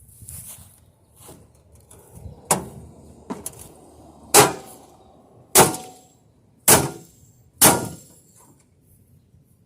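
Sharp metal clangs struck about once a second, six in all and the last four loudest, as a tool is hammered against the sheet-metal casing of a microwave to pry it open.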